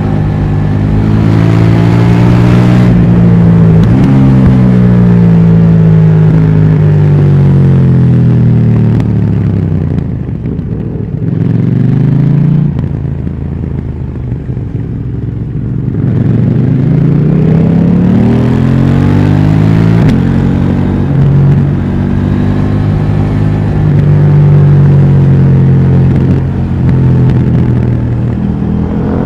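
KTM 790 Duke's parallel-twin engine through its stock exhaust, ridden on the road. The revs fall away for several seconds as it slows, go quieter off the throttle for a few seconds in the middle, then climb again and hold before dropping near the end.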